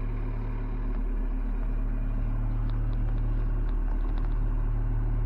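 Case IH 9130 four-wheel-drive tractor's diesel engine idling steadily just after a cold start, warming up.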